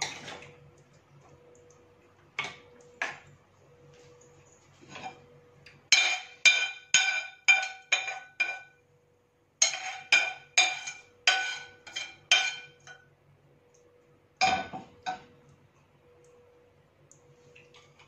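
A metal or glass kitchen vessel clinking as it is struck again and again, each strike ringing at the same pitch: a few single clinks, then two quick runs of six or seven strikes and a last pair. A faint steady hum runs underneath.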